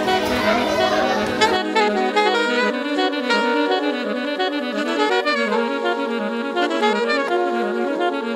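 Instrumental background music with a stepping melody. For the first second and a half, classroom noise from children sounds under it, then cuts off.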